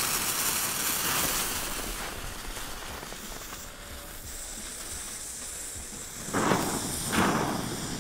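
Two small Nico Irrlichter ground fountains hissing as they burn and spray sparks. The hiss is loudest at the start and settles over the first few seconds, and two short, louder rushes of hiss come near the end.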